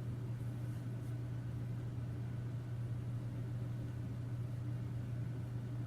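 A steady low hum with faint hiss: room background noise with no distinct event.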